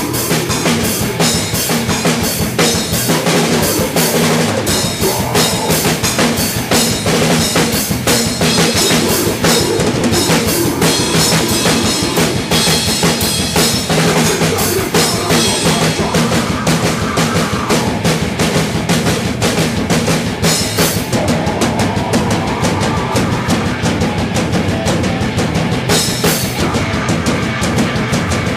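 Loud live band rehearsal: a drum kit played hard and fast, with dense bass drum, snare and cymbal hits, and a vocalist singing into a microphone over it.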